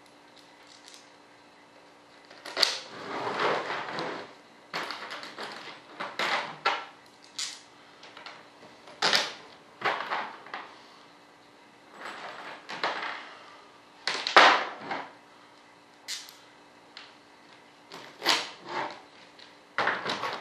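Small metal bolts and nuts clinking and rattling as they are picked from a loose pile and fitted by hand, with parts knocked on a workbench: a string of short clattering bursts and clicks, the loudest about fourteen seconds in.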